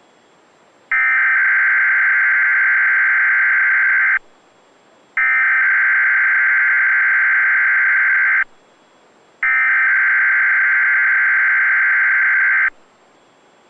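Weather radio SAME digital header: three identical bursts of screechy data tones for the Required Weekly Test, each about three seconds long, with a second of faint hiss between them. This is the header that activates alert-equipped weather radio receivers.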